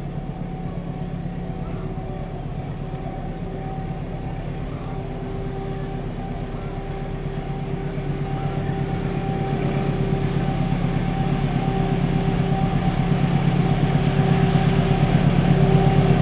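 Diesel locomotive approaching under power, its engine drone growing steadily louder, with a steady whine over it.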